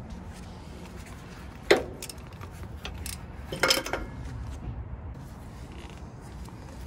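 Metal clinks of a ratchet and 14 mm deep socket on an Isuzu NPR's transmission sensor: one sharp clink about a second and a half in, then a quick cluster of clinks near four seconds.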